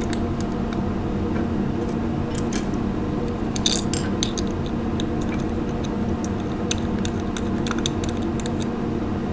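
Scattered small metallic clicks and clinks as steel washers and lock nuts are placed onto the bolts of an aluminium brake master cylinder adapter plate and spun on by hand, over a steady low hum.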